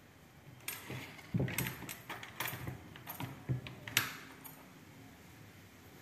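Footsteps on a tiled floor, about one a second, mixed with a run of small clinks and rattles that starts about a second in and dies away soon after four seconds. The sharpest click comes near the four-second mark.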